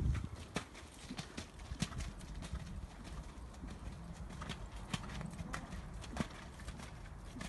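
Hoofbeats of a ridden horse moving around a wet, muddy sand arena: soft, irregular thuds and clicks about every half second.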